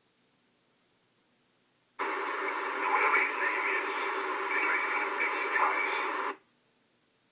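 Short radio transmission received on a Pro-2006 scanner: about two seconds in the squelch opens on a hissy, narrow-band signal carrying faint sounds, which cuts off abruptly after about four seconds.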